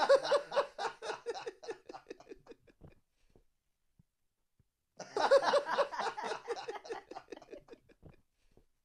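Recorded audience laughter triggered from a sampler, played twice: each burst starts abruptly and fades out over about three seconds, with silence between.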